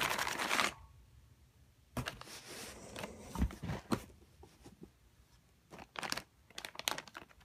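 Packing material being handled: short bursts of rustling and scraping with a few light knocks, separated by quiet gaps.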